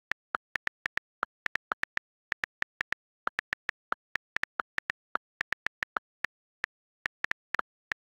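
iPad on-screen keyboard key-click sounds as text is typed, a quick irregular run of short clicks at about five a second with dead silence between them and a couple of brief pauses.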